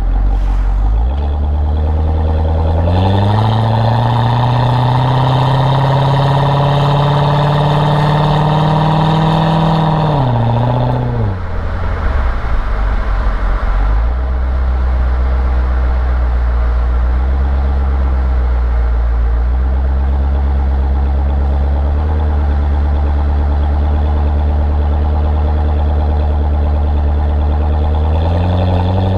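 Chevrolet Corvette C6 V8 engine revving up, the pitch climbing steadily for about seven seconds, then dropping sharply about ten seconds in. It then settles to a low, steady run with a few small blips of throttle.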